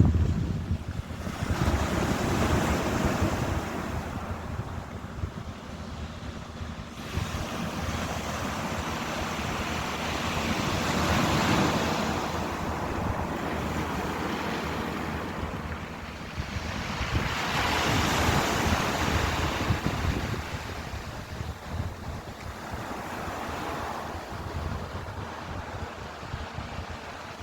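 Ocean waves breaking on a shore, the surf swelling and falling back about every six to eight seconds over a steady low rumble.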